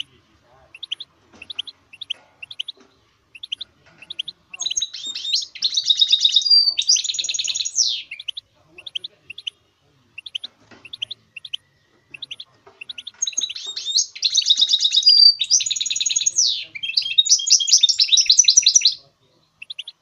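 Goldfinch mule (goldfinch × canary hybrid) singing: two long song phrases of rapid trills and sweeping notes, the second one longer, with short high chirps repeated in between.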